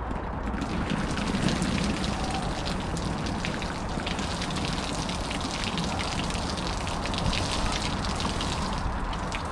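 Ice water overflowing the rim of a wheelie bin and splattering onto the paving below, a steady rain-like patter, as a person sits down in the filled bin and pushes the water out. The patter thickens about half a second in.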